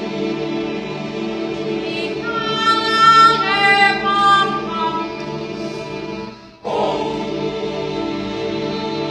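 Choir singing a sustained chord, with the higher voices rising into a louder melodic phrase about two seconds in. The sound dips out briefly past the middle, then the held chord resumes.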